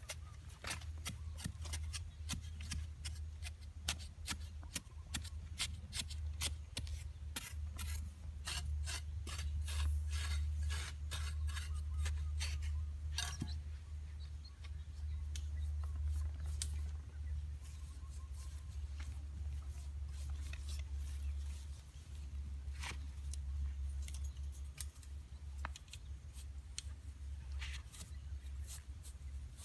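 Rapid sharp clicks and snips of hand work, dense through the first half and sparser after about 14 seconds, over a steady low rumble.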